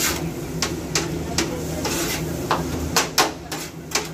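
Metal spatula tapping and scraping on a steel flat-top griddle as shawarma meat and fries are chopped and turned: a string of sharp taps that come quicker in the second half, over a steady low hum.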